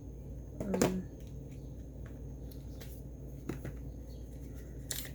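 A few light clicks and taps of cosmetics packaging being handled, the sharpest click near the end, over a steady low hum.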